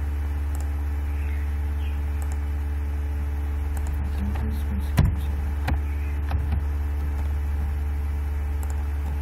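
Steady low electrical hum on the recording, with a few sharp clicks about halfway through.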